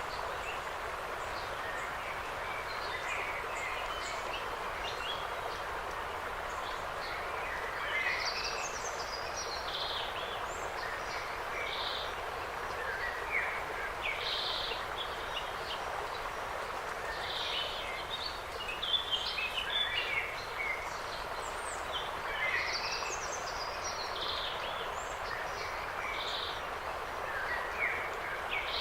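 Forest birds calling and chirping in short scattered phrases, busier in stretches, over a steady rushing background like wind through trees.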